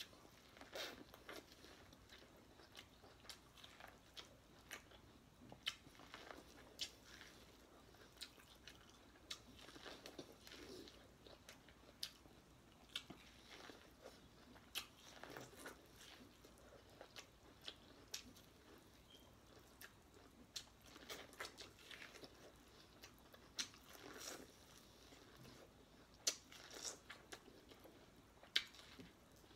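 Biting kernels off a buttered, steamed ear of corn on the cob and chewing them: many short, sharp clicks scattered at irregular intervals, a few much louder than the rest.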